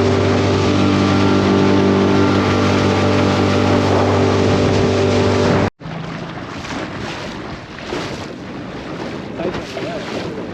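Tender's outboard motor running steadily at speed, with water and wind noise. It cuts off abruptly about five and a half seconds in, leaving quieter water and wind.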